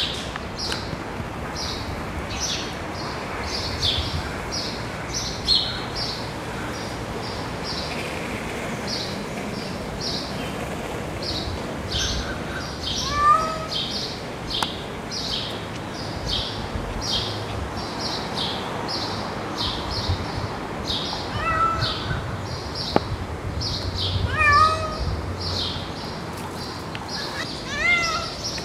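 Black cat stuck up a tree meowing about four times, with the calls spread through, the clearest about 13 and 24 seconds in. Behind it a bird chirps steadily, about twice a second.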